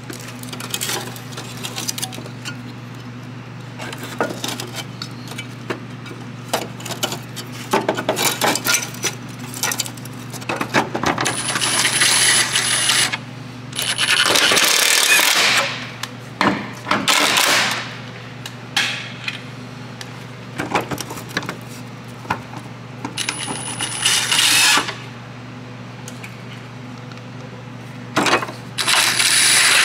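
Impact wrench with a 14 mm socket running the subframe bracket bolts in, in several loud runs of a second or two, some with a high whine. Between the runs, bolts, socket and metal parts clink and rattle.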